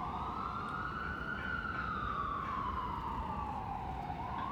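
Emergency vehicle siren in a slow wail: the pitch rises over about a second and a half, falls over the next two and a half seconds, and starts rising again near the end.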